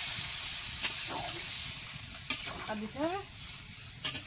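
Chicken curry sizzling in a hot kadai just after water has gone in on the browned meat: a steady hiss that slowly dies down, with a few sharp clicks of utensils against the pan.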